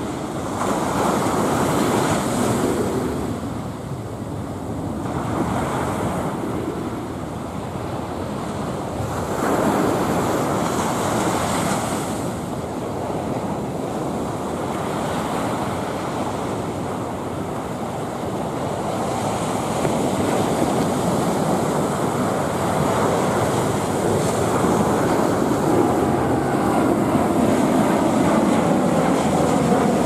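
Ocean surf breaking and washing over the boulders of a rock jetty: a continuous rush that swells louder as each wave breaks.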